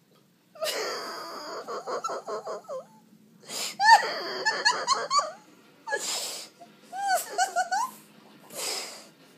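High-pitched laughter in fits, starting about half a second in, broken by gasping, wheezy in-breaths.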